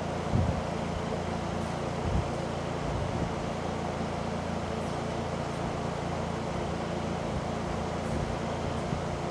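Electric fan running steadily, a constant whooshing hum. A few soft low thumps come through about half a second in, at about two seconds and at about three seconds.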